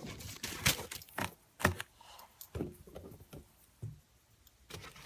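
Handling of a reversible leather belt: irregular sharp clicks and light knocks with soft rustling between them, the loudest two about a second apart in the first two seconds.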